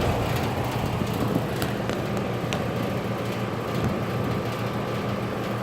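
Outdoor central air conditioner condensing unit running, a steady hum of compressor and condenser fan with a faint steady whine above it and a couple of faint ticks.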